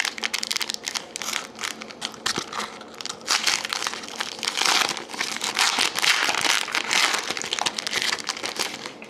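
Wrapper of a Panini Titanium hockey card pack crinkling and crackling continuously as it is torn open and the cards are pulled out.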